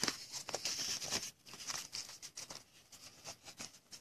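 Trading cards in plastic toploader holders being handled and stacked on a tabletop: faint light clicks and plastic rustling, busiest in the first second or so, then sparse taps.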